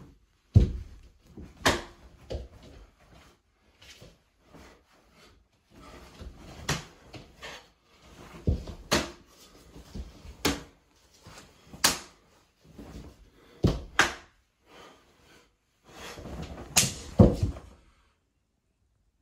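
Bare feet stamping and shuffling on a wooden floor during a martial-arts form: about a dozen sharp impacts at uneven intervals, with fainter scuffs between them. The loudest pair comes near the end, then it stops.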